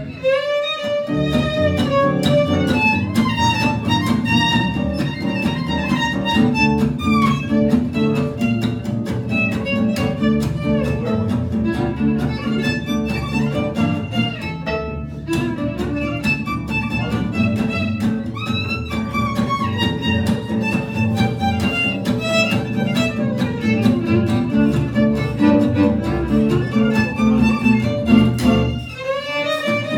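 Live acoustic trio of violin, acoustic guitar and double bass playing an instrumental piece; the violin carries a sliding melody over the guitar and the plucked bass. The accompaniment drops away for a moment about a second in and again near the end, leaving the violin.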